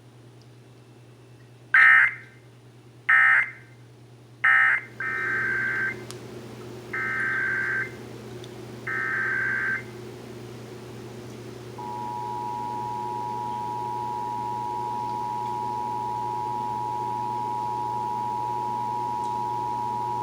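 Emergency Alert System signalling: three short bursts of screechy digital data tones, the end-of-message code, then three longer data bursts about a second each, the SAME header. From about twelve seconds in comes the steady two-tone EAS attention signal (853 and 960 Hz).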